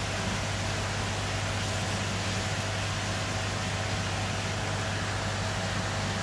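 Steady low hum under an even hiss, the constant running noise of the koi tank's pump and aeration equipment.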